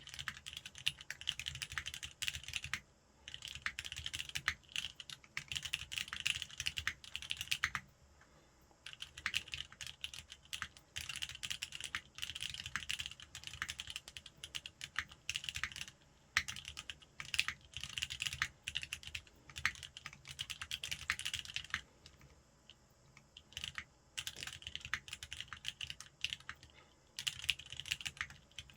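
Fast typing on a custom mechanical keyboard with lubed Cherry MX Black linear switches in an aluminium plate and sandwich mount, under Rama Heavy Industry keycaps. Quick runs of keystrokes break off in short pauses every few seconds.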